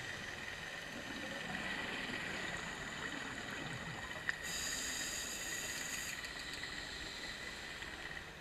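Underwater ambient noise picked up by a diver's camera: a steady hiss with a faint high tone. A single sharp click about four seconds in, then a thin high whine for about a second and a half.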